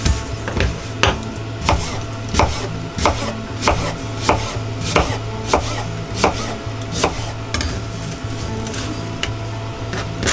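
Kitchen knife chopping vegetables on a cutting board, one chop about every two-thirds of a second, the strokes growing fainter and sparser near the end.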